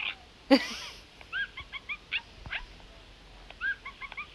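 Cookeez Makery Pancake Treatz plush pet's electronic sound effects, set off by pressing the toy: one loud cry about half a second in, then clusters of short high chirps.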